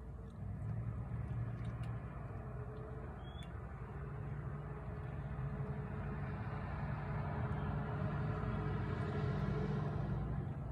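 A motor vehicle's engine rumbling steadily, growing louder over several seconds and easing off near the end.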